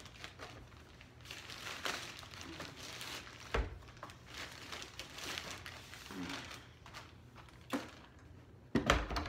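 Clear plastic bag crinkling and rustling as a robot vacuum is pulled out of it, with a knock about three and a half seconds in and a louder thump near the end.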